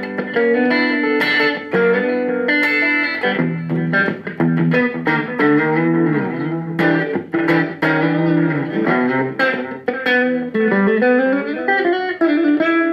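Electric guitar played through a Zoom G3Xn multi-effects pedal on a crunch patch: a Matchless 30 amp-and-cabinet simulation with a light delay. Picked chords and ringing notes, some sliding or bending in pitch.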